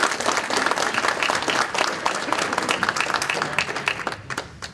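Audience applauding, a dense spatter of clapping that thins out and dies away near the end.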